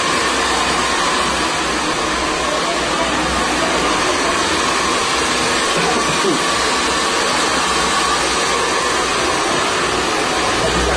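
Handheld hair dryer blowing steadily: an even rush of air with a steady whine in it.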